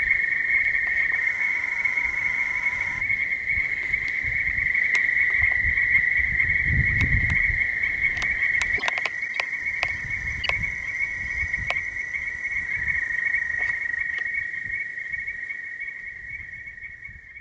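Night frog chorus at a pond: many frogs trilling together in one steady, high, unbroken band of sound that fades out near the end. A brief low rumble comes about seven seconds in.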